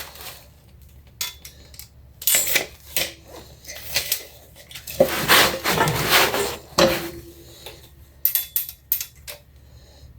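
Metal parts and tools being handled: a string of separate clanks and clinks, with a longer clattering stretch about five to seven seconds in, and some knocks leaving a brief ringing note.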